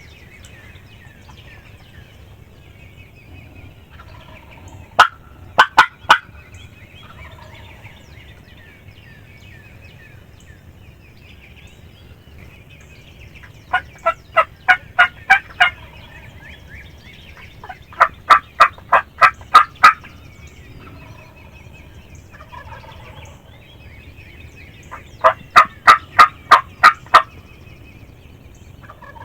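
Four runs of loud, sharp turkey yelps: a short run of about four notes, then three runs of seven or eight notes at about four a second. Faint birdsong lies underneath.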